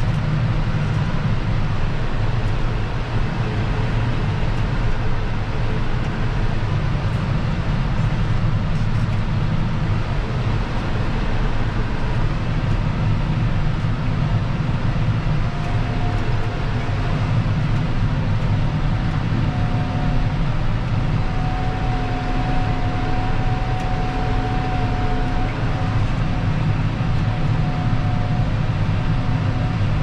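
John Deere 6155R tractor's six-cylinder diesel engine running steadily under load as it pulls a plough, heard from inside the cab as a deep, even drone. A faint steady whine comes in about halfway through.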